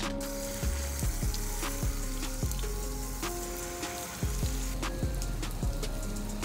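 Garden hose spray nozzle hissing as it sprays water over potted plants, fading out after about five seconds. Background music plays throughout.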